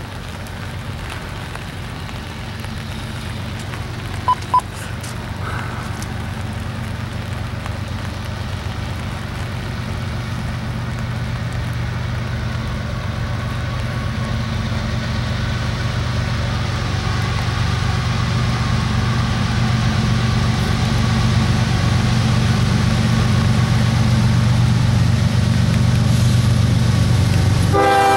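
Diesel engines of approaching CSX freight locomotives, a steady low rumble that grows louder as the train comes closer. Two short beeps sound about four seconds in, and the locomotive's horn starts right at the end.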